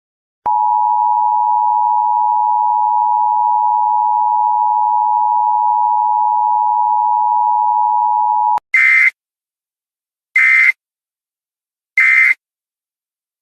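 Emergency Alert System two-tone attention signal, a steady, loud tone held for about eight seconds that cuts off sharply. It is followed by three short bursts of data tones about a second and a half apart, like the EAS end-of-message code.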